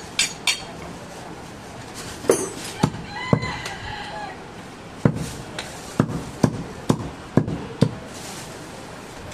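Heavy butcher's cleaver chopping goat meat on a round wooden log block: a few scattered knocks, then seven strong chops about two a second in the second half as the flap is cut into pieces. A brief high call, like a chicken's, sounds about three and a half seconds in.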